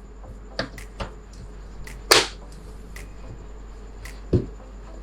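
A cardboard watch presentation box being opened and handled: several light clicks, a louder sharp snap about two seconds in, and a dull thump near the end.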